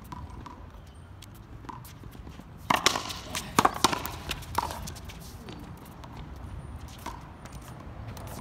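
Racquetball rally: sharp smacks of the ball off racquets and the concrete wall, with players' footsteps on the court. The loudest run of hits comes about three to four and a half seconds in.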